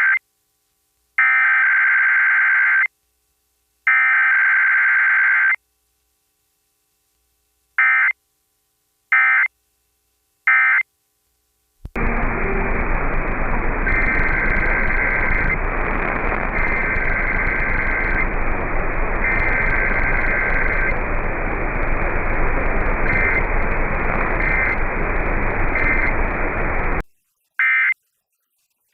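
Emergency Alert System digital header tones: three long, harsh data bursts about 1.7 s each, then three short end-of-message bursts. About twelve seconds in, loud radio static starts with the same three-long, three-short burst pattern faint inside it. The static cuts off suddenly near the end, followed by more short clean bursts.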